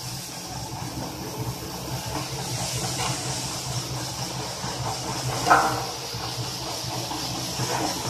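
Carrot roller washing machine running with water spraying from its nozzle bars onto the carrots: a steady motor hum under continuous hissing spray. A short louder knock comes about five and a half seconds in.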